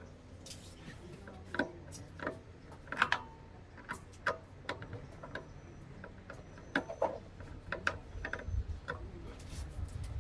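Irregular light clicks and knocks, a few a second at times, with a low hum underneath.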